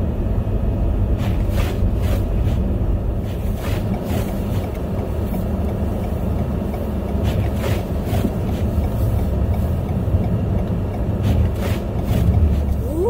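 Car driving on snow-covered roads, heard from inside the cabin: a steady low rumble of engine and tyres on packed snow and slush. Short soft clicks come every few seconds, often in pairs.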